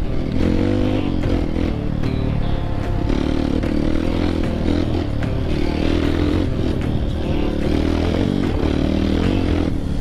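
Dirt bike engine revving up and down as it pulls along a rough trail, with clattering from the bike over the ground.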